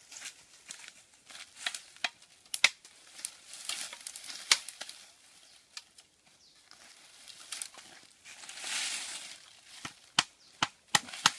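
Machete blade striking a green stick as it is chopped into a skewer: sharp, separate chops every second or so, with a quick run of four near the end. About two-thirds through, dry twigs and leaves rustle and crackle for a moment.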